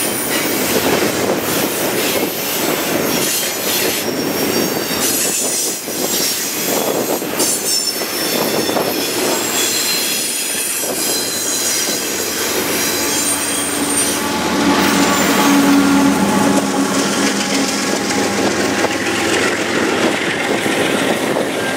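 Double-stack container freight train rolling past, its wheels squealing and clattering over the rails. About two-thirds of the way through, as the last cars go by, a steady droning hum comes in and holds.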